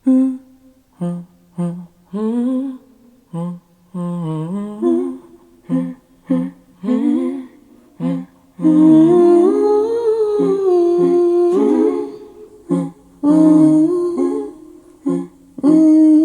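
Recorded music played through a bookshelf loudspeaker and picked up by a microphone in a small room: layered female vocal humming with no instruments. Short hummed notes come with gaps between them, and about eight seconds in they give way to longer held chords.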